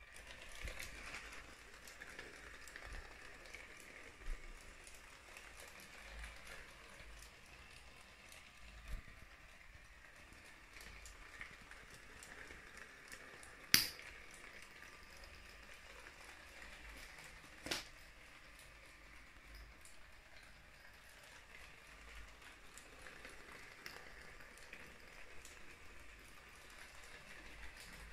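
A LEGO Powered Up train motor running faintly as the locomotive travels around plastic LEGO track, with a few sharp clicks, the loudest about fourteen seconds in.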